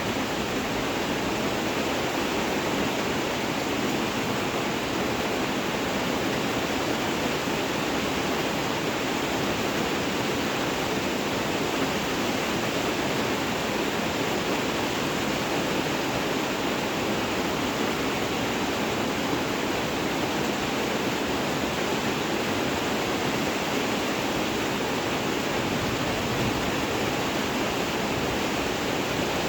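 Steady, heavy rainfall: an even, unbroken hiss of rain with no distinct drops or thunder.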